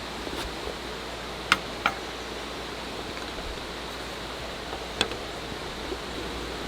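Steady hiss with a few sharp clicks of small hard objects knocking together: two close together about one and a half seconds in, another about five seconds in, and a faint one just after.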